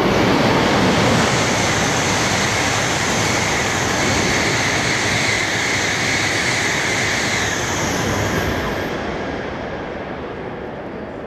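Coupled E5 and E6 series Shinkansen train passing through a station at high speed: a loud, steady rushing noise of wheels, track and air that fades away after about eight seconds.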